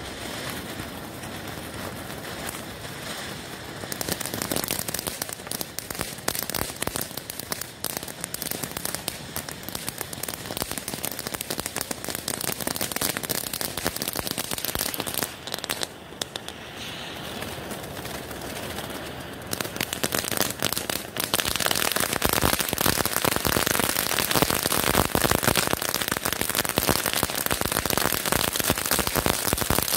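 Pyrotechnic spark fountain hissing and crackling densely as it burns. It steps up in loudness about four seconds in, dips briefly in the middle, then builds to its loudest, thickest crackle over the last third.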